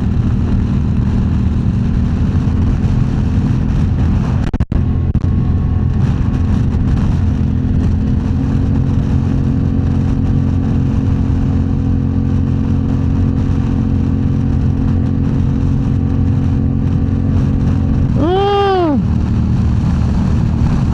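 Motorcycle engine running steadily at highway cruising speed, with wind noise. Near the end a brief tone rises and falls in pitch over about a second.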